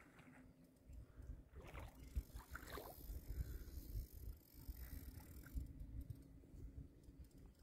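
Wind rumbling on the microphone over shallow, rippling water, with a few faint high rising sounds about two seconds in.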